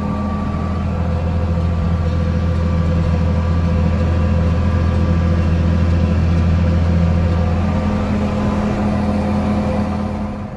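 Tractor engine running steadily under load while pulling a hay baler through the field: a constant, even hum.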